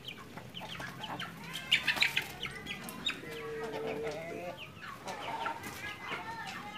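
Pelung chickens clucking and calling, many short calls overlapping, with one longer, drawn-out call a little past three seconds in.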